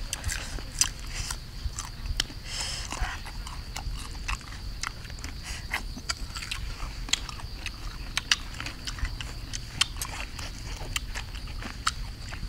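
Someone biting and chewing crunchy sour fruit close to the microphone: irregular crisp crunches and mouth clicks.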